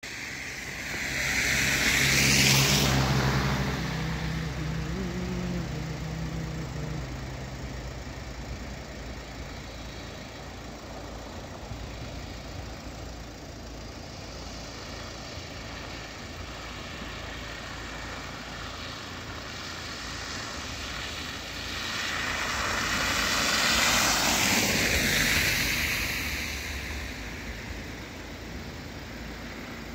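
Two vehicles pass on a wet road, each a swell of tyre and engine noise that rises and fades: the first peaks a couple of seconds in with a low engine hum, the second peaks about 24 seconds in. A faint steady hiss lies between them.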